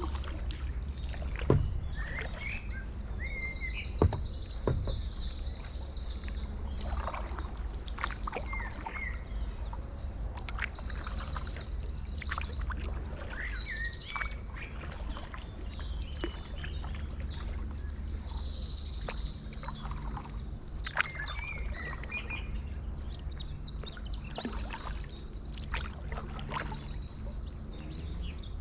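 Songbirds singing, with repeated bursts of fast, high trills and scattered chirps over a steady low rumble. A few sharp knocks come in the first five seconds.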